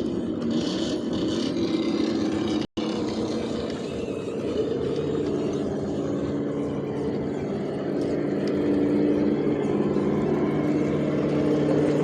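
Electric motor and gearbox of an RC rock crawler whining steadily, its pitch shifting slowly with throttle. The sound cuts out completely for a moment about three seconds in.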